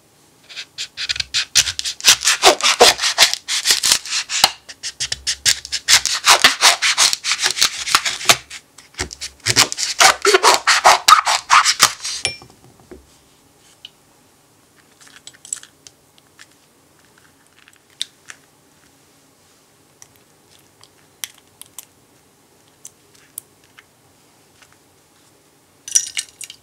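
A kitchen knife sawing through the tough rinds of passion fruits on a wooden cutting board: three bursts of fast rasping strokes, each a few seconds long. Then faint scattered clicks, and near the end a short splat as the pulp is poured into a stainless steel saucepan.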